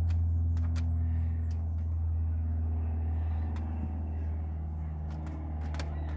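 An engine idling with a steady low drone, under scattered light clicks and taps from a silicone light-diffuser strip being pressed into the plastic centre-console trim.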